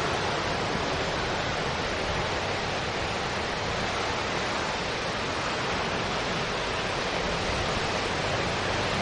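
Steady rushing of ocean surf breaking along the beach, an even wash of noise without pause.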